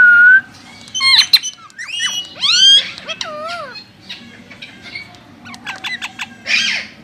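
Pet parakeets, an Indian ringneck and an Alexandrine, calling: a string of loud squawks and gliding whistled notes, ending with a harsh squawk near the end.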